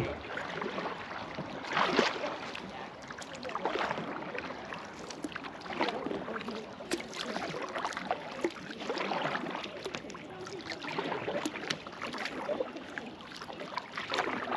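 Kayak paddle strokes: the blades of a double-bladed paddle dip and splash in the water in an irregular rhythm, about one stroke every second or two.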